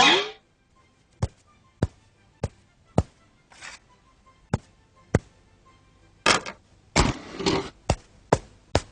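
Cartoon sound effects: a string of sharp, single knocks or taps in near silence, spaced about half a second apart at first and then less regularly, with a few short rustling noises in between.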